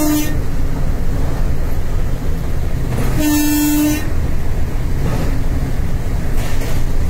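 Locomotive horn: the end of one blast right at the start, then a second short blast of under a second, one steady pitch, about three seconds in. Both sound over the steady rumble of the locomotive cab.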